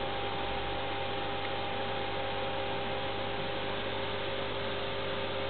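Steady electrical hum with a few held tones over an even hiss: the running equipment of a room full of aquarium tanks.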